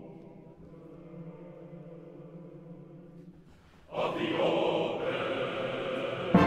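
Choir singing a quiet, chant-like passage on long held notes. About four seconds in, the music swells suddenly much louder, and just at the end the full orchestra comes in.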